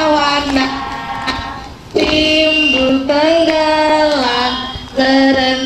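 Young children and women singing together, a children's song about fish living in an aquarium, in phrases of long held notes with short breaks between them.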